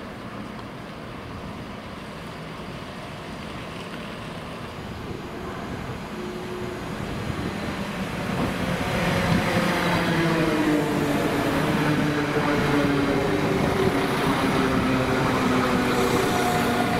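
A diesel train running at the station, its engine getting louder from about eight seconds in as it comes closer, the engine note sliding slowly lower.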